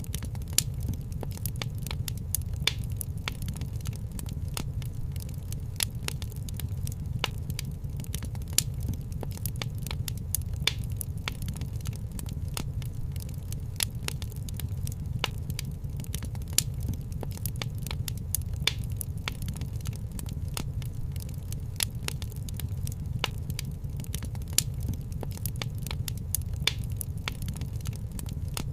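Wood fire crackling in a fireplace: frequent irregular sharp pops and crackles over a steady low rumble.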